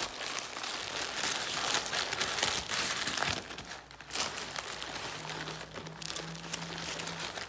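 Paper wrapper of a Subway sub being unwrapped, crinkling and rustling continuously, with a brief lull about halfway through.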